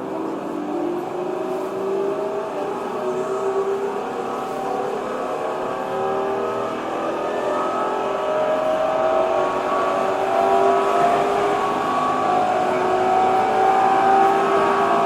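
Tokyo Metro 07 series electric train running with its VVVF inverter and traction motors whining, the tones rising slowly in pitch and growing a little louder as the train gathers speed, over steady rail and running noise heard from inside the car.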